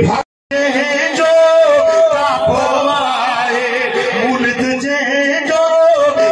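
A man's voice chanting a devotional recitation into a microphone, in long, wavering melodic lines. The sound cuts out briefly just after the start.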